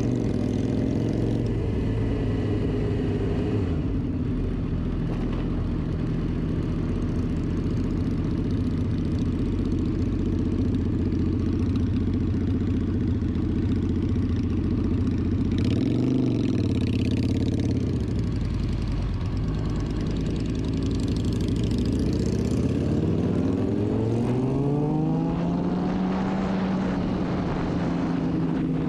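2006 Suzuki GSX-R 750's inline-four engine running, heard from the rider's seat: a steady drone, a brief rise and fall in pitch about halfway, then a climbing pitch as it accelerates near the end before holding steady.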